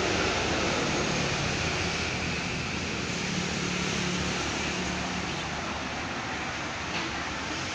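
Road traffic passing close by: a truck's engine and tyres, loudest at the start and slowly fading, then a motorcycle going past about halfway through.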